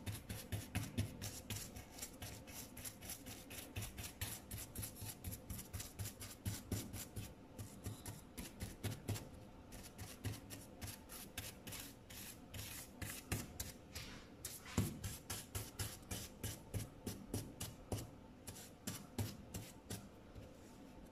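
Fast back-and-forth scrubbing of a small cleaning tool against the inside of a laptop's metal bottom case, a dry rubbing rasp of about three strokes a second that stops near the end.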